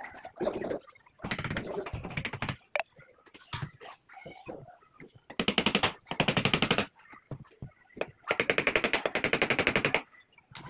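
A handheld power tool with a hammering action, used on a plywood door frame, clattering in three bursts of rapid, even blows. The last burst is the longest and comes near the end.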